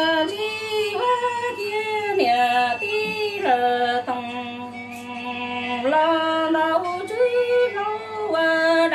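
A woman singing Hmong kwv txhiaj, traditional unaccompanied sung poetry, in one voice: long held notes that step between pitches and fall at the ends of phrases, with a faint steady hum beneath.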